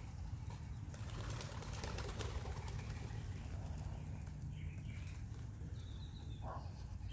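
Young pigeons' wings flapping irregularly as birds take off and move around the loft, with a few short high chirps in the second half.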